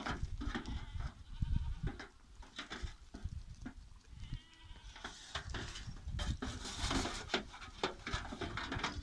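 Goat kids bleating as they clamber in and around a metal wheelbarrow, with scattered knocks and clatter from their hooves on the barrow.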